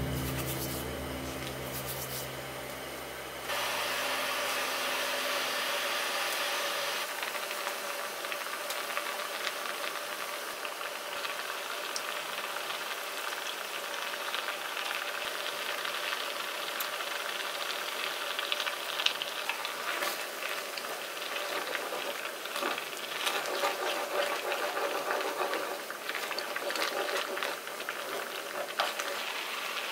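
Tteokbokki sauce bubbling and simmering in a shallow electric pan, a steady fizzing bubble with scattered small pops. Background music fades out in the first few seconds, and later a spoon stirring the sauce adds small clicks and scrapes against the pan.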